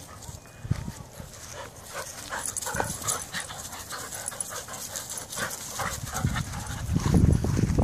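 Two dogs panting quickly in short breathy strokes while tugging at a ball between them, with a louder low rumble near the end as they scuffle close by.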